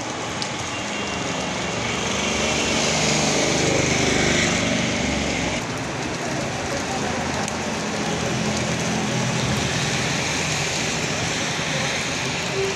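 Steady rain falling on a wet street. A vehicle engine passes through it, loudest about two to five seconds in.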